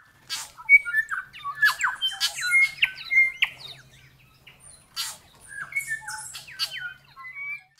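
A bird singing a varied run of short whistles, sliding notes and sharp clicks, in two bursts with a pause of about a second between them, over a faint low hum.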